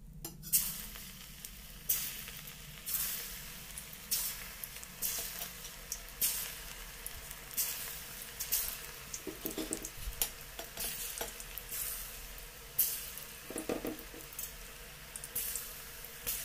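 Rice pakoda batter frying in hot oil in an iron kadhai: the oil bursts into sizzling about half a second in as the pieces go in, then keeps up a steady crackling hiss with repeated surges. The oil is on a high flame, which the cook then finds too hot.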